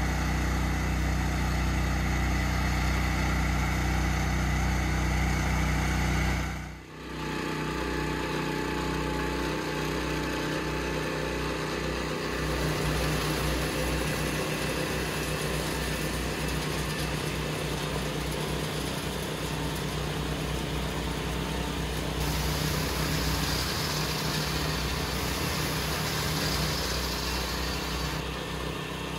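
Engine-driven hydraulic power unit of a portable belt conveyor running steadily, driving the belt; the sound dips briefly about seven seconds in.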